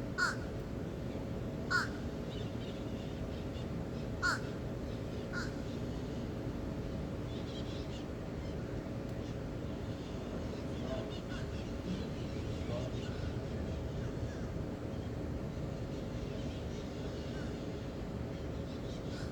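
A bird gives four short, loud calls spread over the first five seconds or so, each dipping in pitch, and fainter calls follow later. Underneath runs a steady low rushing background.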